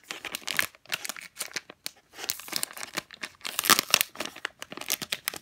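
Thin plastic packaging bag crinkling as it is handled and pulled open, with tearing of the clear plastic at the top. The crackling comes in uneven bursts that grow busier and louder from about halfway through.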